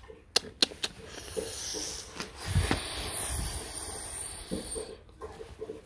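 Rottweiler puppy mouthing and chewing at a person's hand, snuffling and breathing hard, with a few sharp clicks in the first second.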